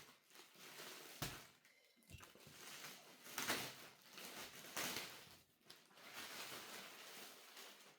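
Faint, irregular rustling and handling of packaging as a box is unpacked, with a couple of soft knocks in the first two seconds.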